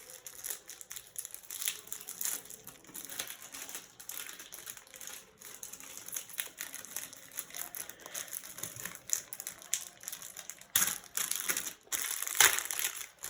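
Crinkling of a Donruss football card pack's plastic wrapper as it is torn open and handled, in irregular bursts, loudest for about two seconds near the end.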